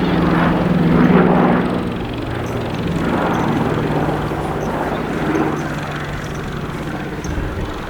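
Consolidated PBY Catalina's twin radial engines and propellers droning steadily in flight, loudest about a second in, with the pitch dropping slightly around two seconds in as it passes.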